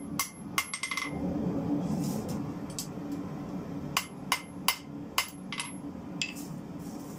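Hand hammer forging a red-hot steel bar cut from a car spring on an anvil: a quick run of about five blows in the first second, then after a pause another five or so blows about half a second apart. A steady low rumble runs underneath.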